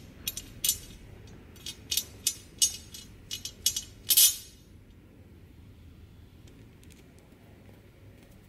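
Sharp metallic clicks and clinks of a steel bushing being handled and turned on a threaded steel rod, about a dozen in the first four seconds, the last one the loudest and ringing briefly. After that only a faint low hum remains.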